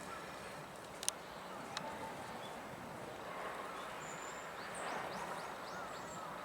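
Birds calling outdoors: two sharp, clicking 'tic' calls typical of a hawfinch, then a quick run of about five short high chirps with a thin high whistle around four to five seconds in.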